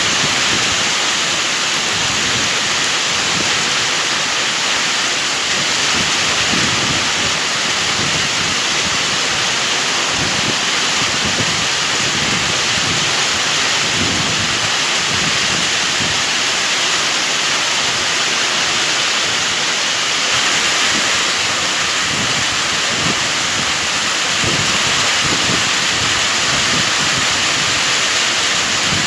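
Heavy rain pouring down: a loud, steady hiss with no let-up.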